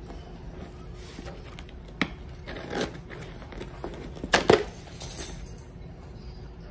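Handling noises from a cardboard shipping box: a few knocks and short scraping rustles, the loudest a pair of sharp knocks about four and a half seconds in.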